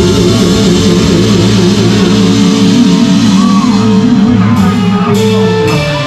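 Live rock band playing loud, with electric guitars and a long held note that wavers in pitch; the band cuts off near the end.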